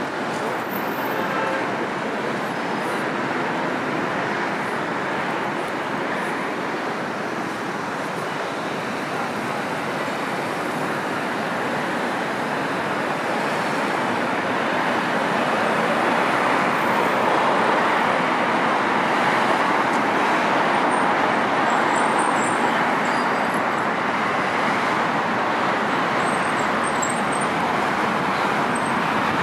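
City road traffic: a steady wash of passing cars and buses, growing a little louder about halfway through.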